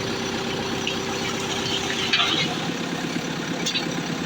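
Backhoe engine running steadily, its note changing a little about two seconds in, with a few short knocks over it.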